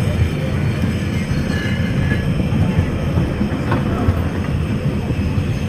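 Car of a Victorian cable-hauled tramway running along its rails, heard on board the open car: a steady low rumble with faint thin high tones over it and a short click nearly four seconds in.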